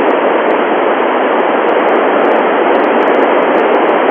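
Loud, steady FM static hiss from an Icom IC-9700 receiver tuned to a satellite's 70 cm FM downlink, heard with the squelch open and no station transmitting through the satellite.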